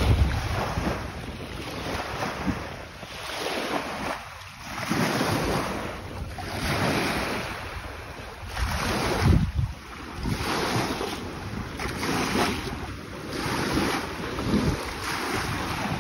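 Small lake waves washing and lapping onto a sandy, pebbly shore, rising and falling every second or two, with wind gusting on the microphone.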